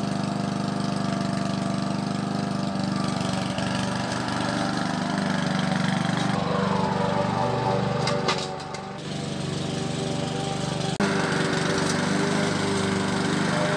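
Honda four-stroke petrol push lawn mower running steadily while cutting grass, with a brief dip in level a little past halfway through.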